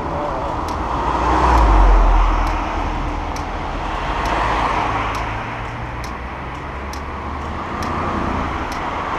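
Cars driving past close by, engine and tyre noise swelling and fading as each one goes by, the loudest about two seconds in and another near the end. Faint regular clicks sound about once a second throughout.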